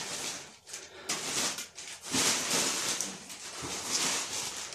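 Crumpled newspaper packing rustling and crackling as a hand pushes it aside inside a cardboard box, in uneven spells with short pauses.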